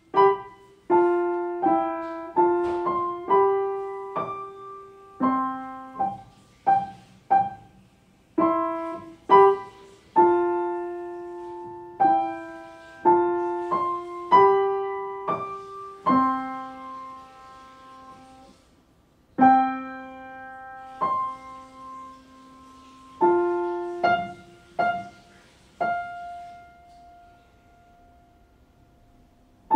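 Solo piano playing a melody of struck notes, short detached (staccato) notes mixed with held legato ones. It pauses briefly about halfway, and near the end a note is held and left to ring out.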